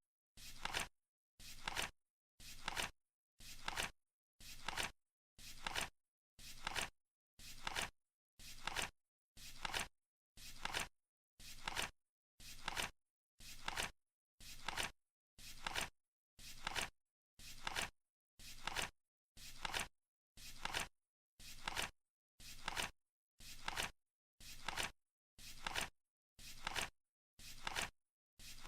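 Flip-clock countdown timer sound effect: a short flap as a card turns over, repeating evenly once a second to mark each second counting down.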